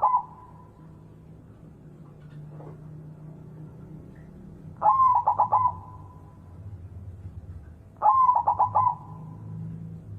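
White zebra dove (perkutut) cooing. It gives two short phrases of quick stuttering coo notes, about three seconds apart, and the end of another phrase falls right at the start.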